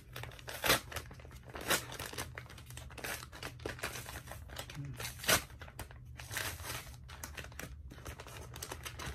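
A paper Amazon mailer envelope being torn open by hand, the stiff paper crackling and crinkling throughout, with three louder rips: about a second in, near two seconds, and about five seconds in.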